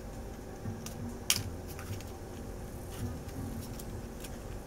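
Tweezers clicking and scraping against a smartphone's opened frame and internal parts: a few small sharp ticks, the loudest a little over a second in.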